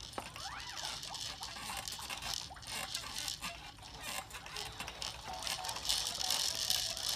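Light, irregular rattling and clicking.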